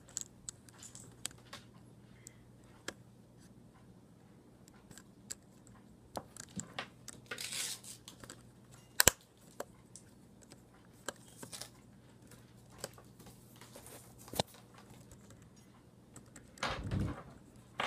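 Scattered small plastic clicks and snaps from a mid-2009 MacBook Pro (A1286) keyboard as a keycap is pressed back onto its key mechanism, with one sharp snap about nine seconds in. A brief muffled rumble comes near the end.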